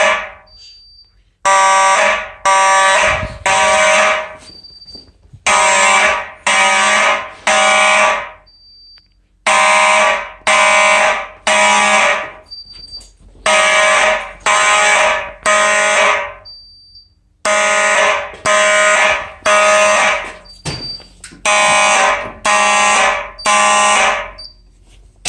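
Simplex fire alarm horns sounding in the code 3 temporal pattern: three loud buzzing blasts about a second apart, then a short pause, repeating six times. A faint short high blip falls in each pause.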